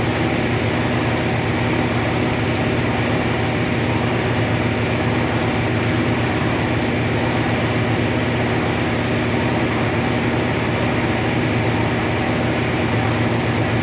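Heavy-drum carpet spin-dryer running steadily at speed, its drum and 7.5 kW motor giving an even, loud drone with several steady low tones.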